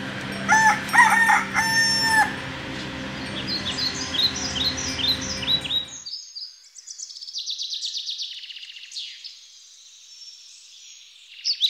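A rooster crows about half a second in, a few short notes and then one long held note, over a low steady hum, while small birds chirp. About six seconds in the hum drops away, leaving busy, high chirping of small birds.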